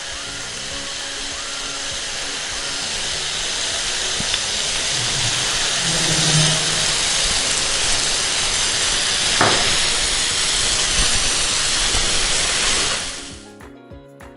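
Chicken satay skewers sizzling on an oiled grill pan: a steady hiss that cuts off suddenly near the end, leaving soft background music.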